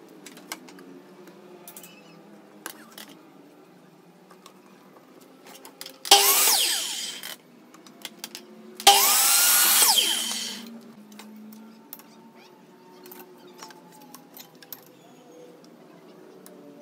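Compound miter saw started twice, each run lasting about a second and a half, cutting through thin wooden strips; the motor whine rises as it spins up and falls away as it winds down. Light clicks and knocks of wood being handled come before, between and after.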